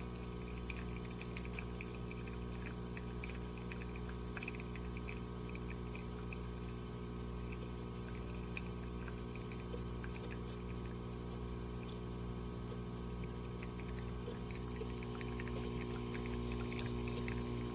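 De'Longhi Dedica Duo espresso machine running with a steady hum, with coffee pouring and dripping into the cup, growing a little louder near the end.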